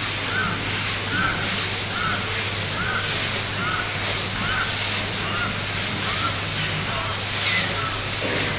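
A group doing a fast breathing exercise, a forceful breath hissing roughly every one and a half seconds. Short repeated calls at a steady pitch, about two a second, and a steady hum run alongside.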